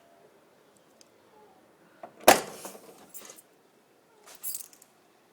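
A single loud clunk from the Mercedes S500's trunk lid and latch about two seconds in, with a short ringing tail, followed by a couple of brief hiss-like rustles near the end.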